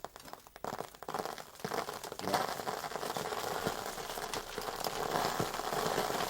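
Foley rain effect starting as scattered light crackles and thickening about two seconds in into a dense, steady rain-like patter.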